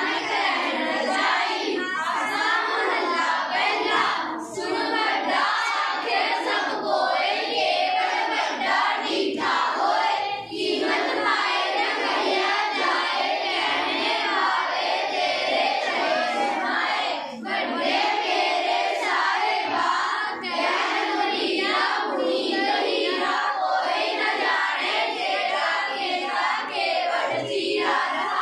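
A classroom of schoolchildren singing a Sikh prayer (Gurbani) together in unison, with brief pauses between lines.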